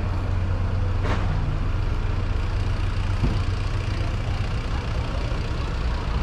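Street traffic: a steady low vehicle engine hum, with a motor scooter riding past. A short knock sounds about a second in.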